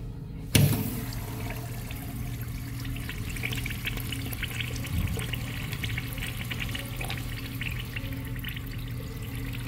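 Urinal flushed with a manual chrome flushometer valve: a sudden rush of water when the lever is pushed, about half a second in, then water running and splashing down the bowl over the urinal screen.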